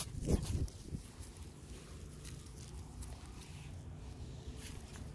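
Footsteps and rustling in grass during a dog walk, with a dull bump in the first half-second and a steady low rumble underneath.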